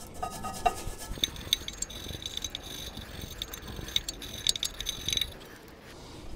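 Steel wire brush scrubbing the rear brake caliper carrier, a rapid metallic scratching that cleans rust and brake dust off the pad slide surfaces before new pads go in. It starts about a second in and stops about a second before the end.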